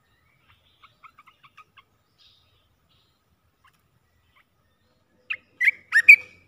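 Olive-winged bulbul calling: a few faint short chirps about a second in, then a loud burst of sharp, quick notes near the end.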